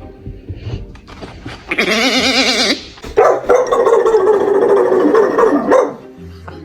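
A dog making a strange vocal sound: a short wavering call about two seconds in, then one long held call of about two and a half seconds.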